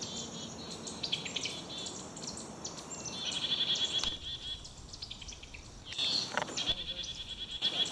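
Small birds calling outdoors: many short, high chips and calls, with a fast, high trill that comes in twice.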